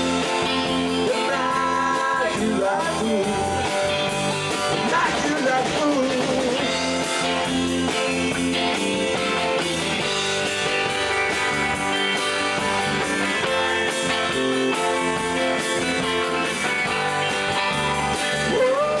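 Rock band playing an instrumental passage on electric guitars, bass and drums, with no vocals. A lead guitar bends and slides its notes in the first few seconds, then holds longer sustained notes.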